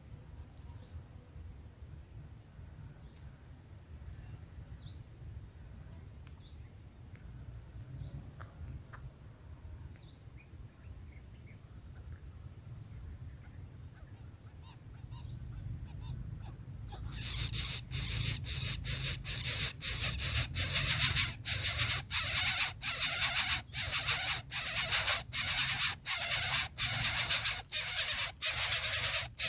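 Coucal nestlings giving loud, rapid hissing rasps, about two a second, begging at the nest. These begin suddenly about two-thirds of the way in, after a stretch of faint, pulsing insect buzz over a low rumble.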